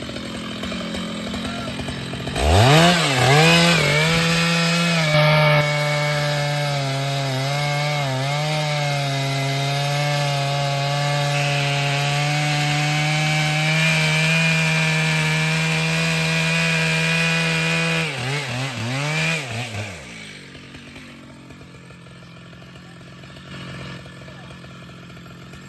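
Two-stroke chainsaw revved up to full throttle about two seconds in and held there cutting wood for about fifteen seconds, its pitch dipping now and then under load, then throttled back and falling to a low idle.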